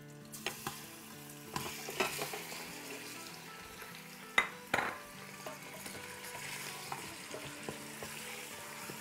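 Raw goat meat frying in hot oil in an Instant Pot's stainless steel inner pot on sauté mode: a steady sizzle as the chunks go in and are stirred with a wooden spoon. A few sharp knocks against the pot break through, the loudest about four and a half seconds in.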